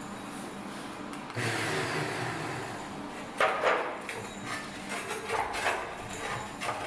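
Eastwood Elite 60 plasma cutter's arc cutting steel plate: a steady hiss comes up about a second and a half in, with sharp, louder crackling bursts midway and uneven crackle after.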